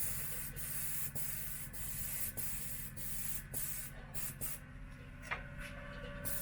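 Gas-powered paint sprayer running with a steady low engine hum, while thick primer hisses out of the spray gun. The spray hiss stops briefly several times, with longer breaks about four seconds in and near the end.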